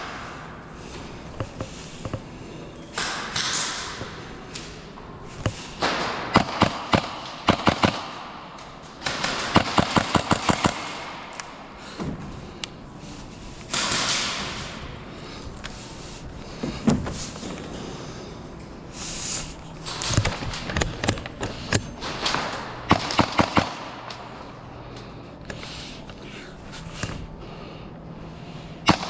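Airsoft guns firing in several rapid bursts of sharp clacks, with single shots and knocks between the bursts.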